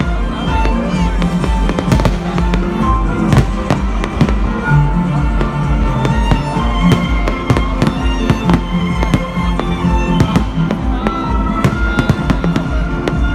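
New Year's Eve fireworks and firecrackers going off in a dense, irregular string of bangs and crackles. Amplified stage music plays underneath.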